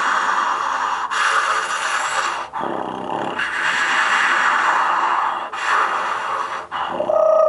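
Didgeridoo played experimentally as a loud, hissing breath drone, broken by four short dips. About seven seconds in, a steady pitched note with an overtone sounds over it.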